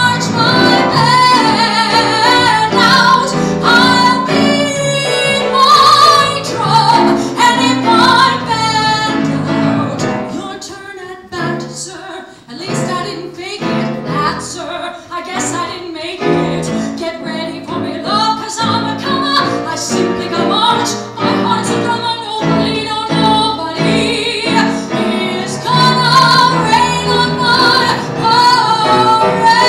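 A woman belting a show tune in a strong, open voice with live piano accompaniment. The singing and piano soften and thin out near the middle, then build back to full voice.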